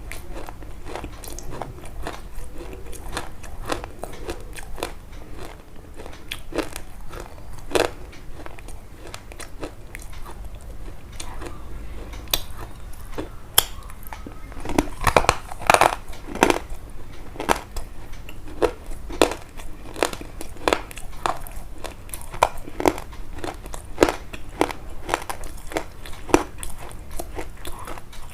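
Close-miked crunching and crackling: irregular sharp crunches, a few a second, densest and loudest about halfway through.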